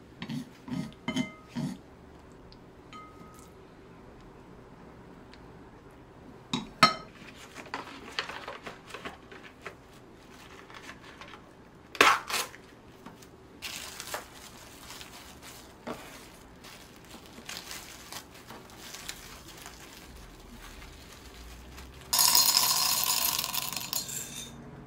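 Kitchen handling sounds: a few quick clinks of dishes near the start, then knocks and the crinkling of plastic cling wrap around sandwiches. Near the end comes the loudest part, coffee beans poured rattling into a stainless-steel grinder cup.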